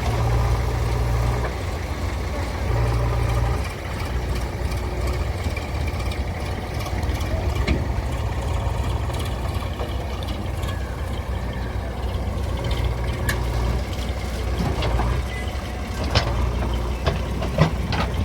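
Heavy diesel engine of a backhoe loader or tractor running steadily, getting louder for a moment twice in the first few seconds. A few sharp knocks near the end.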